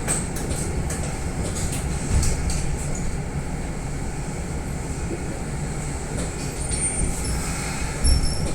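Kintetsu Minami-Osaka Line train heard from inside the car: a steady low rumble with scattered clicks, and a brief thin high squeal near the end.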